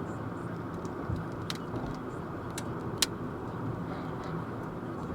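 Steady road and tyre noise of freeway driving, with a few sharp ticks, the loudest about three seconds in, typical of small rocks falling off a concrete truck and striking the vehicle.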